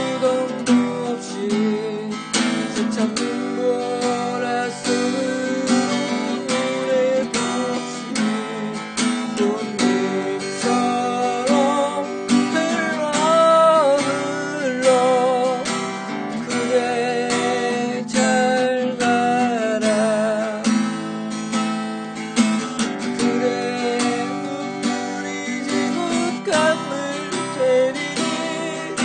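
Acoustic guitar playing an instrumental passage: a melody of plucked notes, some held with a wavering vibrato, over strummed chords.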